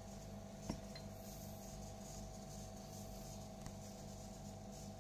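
Faint steady hum with a single short click a little under a second in.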